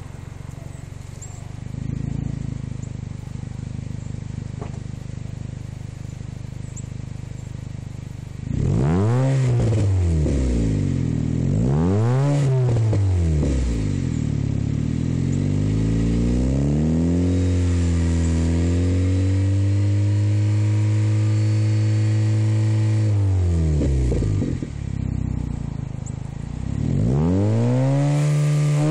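Exhaust note of a 2010 Honda Fit Sport's 1.5-litre four-cylinder through a 2.5-inch stainless cat-back with a glasspack resonator and an N1-style muffler with its silencer removed. It idles steadily for about eight seconds, then gives two quick revs, a longer rev held steady for several seconds, drops back to idle, and revs again near the end.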